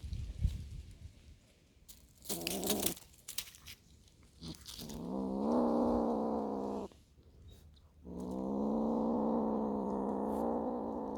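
A cat giving three drawn-out, low calls: a short one about two seconds in, then two long, steady ones of about two and three seconds, with a thump at the very start.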